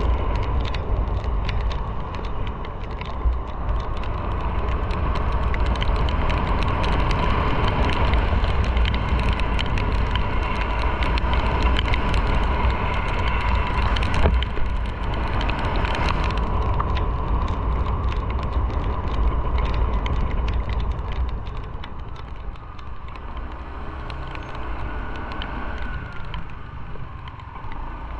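Motorcycle riding on a wet city street: a steady engine note and tyre noise on the wet road, over a low wind rumble on the microphone. It grows quieter over the last several seconds.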